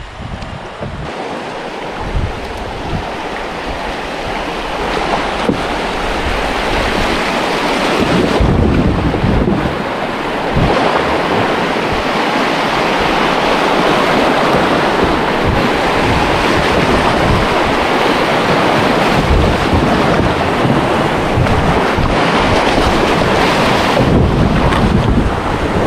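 River water rushing through rapids, growing louder over the first eight seconds or so and then steady, with wind buffeting the microphone.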